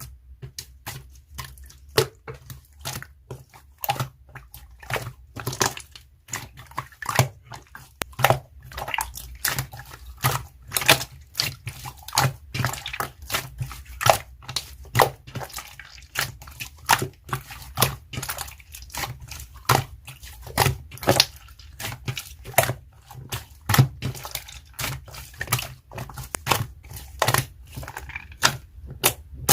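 Slime being squeezed, stretched and pressed by hand, giving a steady run of wet clicks and pops, two to four a second at an uneven pace.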